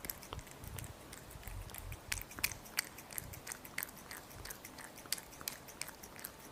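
A kitten eating close to the microphone: an irregular run of small chewing and mouth clicks, several a second.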